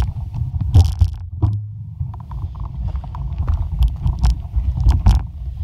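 Mountain bike rolling down a rough dirt trail: a steady low rumble of wind and movement on the microphone, broken by repeated sharp knocks and rattles as the bike goes over bumps.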